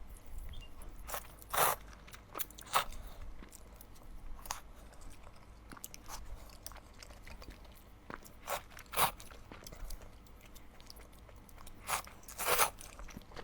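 Close-miked eating sounds: a person chewing, with scattered short crunches and wet clicks, a few louder ones spread irregularly through the stretch.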